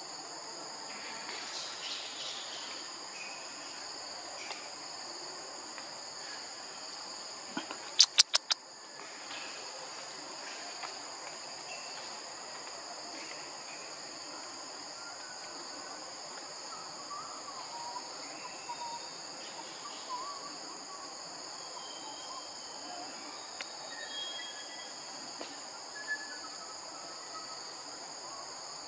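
Steady high-pitched drone of insects with a few faint short bird chirps. About eight seconds in comes a quick run of four or five sharp clicks, the loudest sound here.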